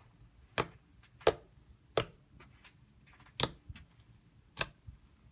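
Fingers poking and pulling soft glitter slime, giving a series of sharp wet clicks and pops, five loud ones about a second apart with fainter ones between.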